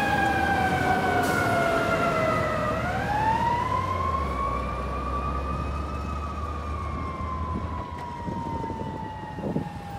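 Fire engine siren wailing as the truck drives away: the pitch falls, turns upward about three seconds in, peaks about three seconds later, then slowly falls as the sound fades. A low engine rumble runs underneath in the middle.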